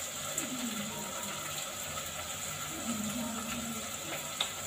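Onions, green peppers and tomatoes frying in a stew pot, a steady low sizzle, with a single click near the end.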